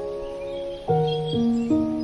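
Gentle background music: soft, sustained pitched notes moving in a slow, calm melody, a new note or chord about every half second, with faint high chirping notes above.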